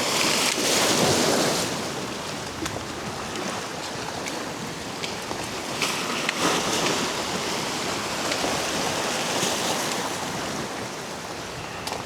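Surf washing against the jetty in surges, with wind on the microphone and a few light clicks.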